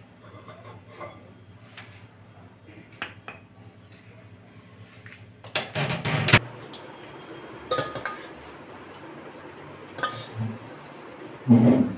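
Steel serving spoon and stainless-steel bowls and plates clinking at a dining table: a few light ticks, a loud clatter about halfway through, then separate sharp clinks.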